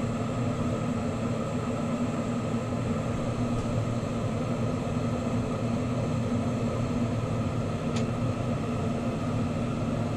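Bench lampworking torch burning steadily, a constant rushing roar with a low hum under it, while a glass gather is heated in its flame. A faint click about eight seconds in.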